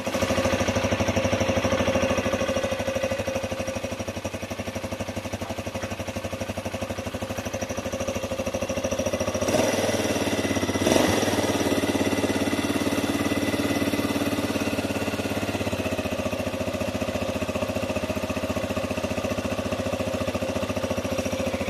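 Honda XR 150 single-cylinder four-stroke motorcycle engine idling steadily after its repair, with a rapid even exhaust pulse and a brief rise in level about halfway through.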